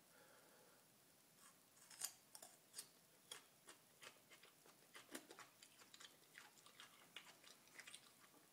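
Raw garlic being chewed: a run of faint, irregular mouth clicks, a few a second. They begin about a second and a half in, and the loudest comes near the start.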